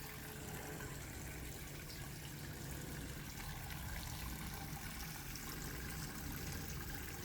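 Water running down a homemade fiberglass rock fountain: a steady, faint trickle and splash of falling water.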